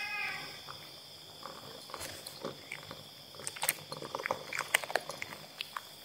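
A hand stroking a cat's fur close to the microphone: irregular soft crackles and clicks, thickest from about three and a half seconds in.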